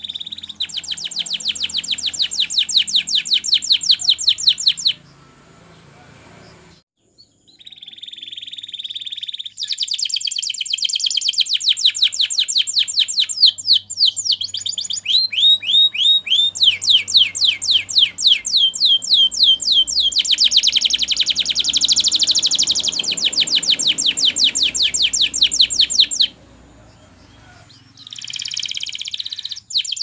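Canary singing: long, fast trilling runs of rapidly repeated high notes, broken twice by short pauses, with a slower run of down-sweeping whistled notes in the middle.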